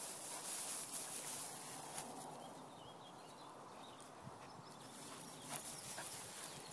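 Rustling and swishing through long grass, with a few light knocks from handling of the camera and faint bird chirps in the middle.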